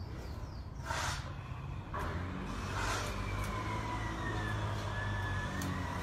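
Steady low motor rumble, with a long, slowly wavering high tone that starts about two seconds in and lasts to the end; two brief hissing noises come before it.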